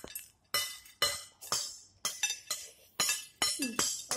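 Metal spoons and forks clinking against plates during a meal of fried noodles: a string of sharp, short-ringing clinks, about two a second.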